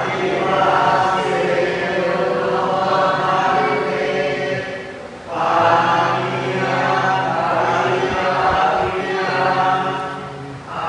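A group of voices doing Buddhist devotional chanting in unison. It comes in two long sustained phrases, with a short break about five seconds in.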